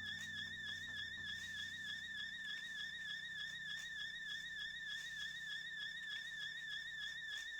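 A steady high-pitched tone that wavers rapidly up and down in pitch, with a faint low drone beneath it that stops shortly before the end.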